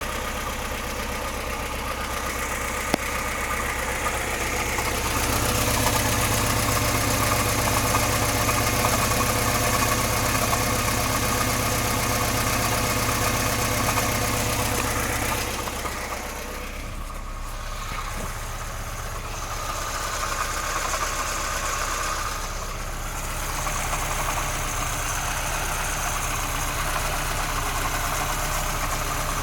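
VAZ-2106 four-cylinder petrol engine running with a knock, briefly louder for a stretch in the middle. The knock sounds like worn bearing shells, but it does not change when the spark plug leads are pulled off one by one, and the timing chain has just been replaced and tensioned, so its cause is uncertain.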